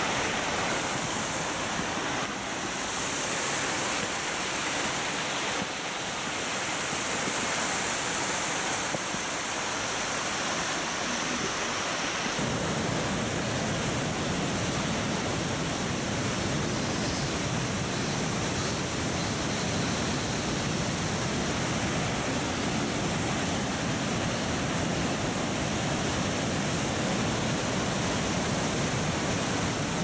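A waterfall in heavy flow, its water rushing steadily. About twelve seconds in the sound grows fuller and deeper.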